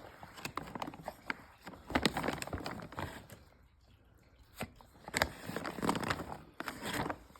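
Dogs eating crunchy treats: irregular crunching and clicking in bunches, with a short lull about halfway through.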